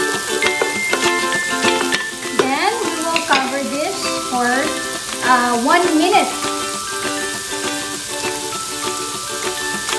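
Diced carrots and onions sizzling as they sauté in a pot, stirred with a wooden spoon at first. Background music with a gliding melody plays over it, most prominent in the middle.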